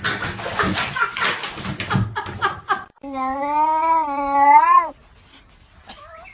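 A cat lets out one long, drawn-out yowl of about two seconds that wavers slightly in pitch, after about three seconds of rough, noisy scuffling sounds.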